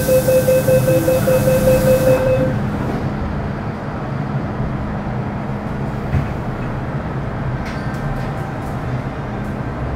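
MTR M-Train door-closing warning beeps, a rapidly repeated tone about six times a second, over a loud hiss; both stop about two and a half seconds in. Then a steady hum inside the carriage, with a few faint clicks near the end.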